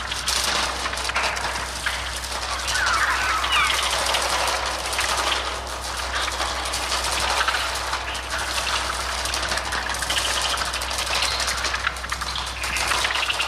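Mixtur-Trautonium electronic bird sounds: a dense swarm of rapid fluttering, clattering wing-beat noise with shrill gliding bird cries, a cluster of sweeping shrieks about three to four seconds in.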